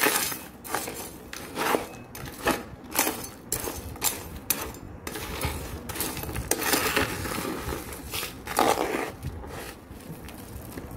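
Small plastic hand trowel digging and scraping through a gritty mix of red soil and sand in a pot, a run of short crunching scrapes about every half second, with a couple of longer scrapes midway.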